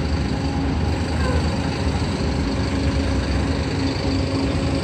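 A steady, low engine rumble with a humming tone that comes and goes, like an idling motor.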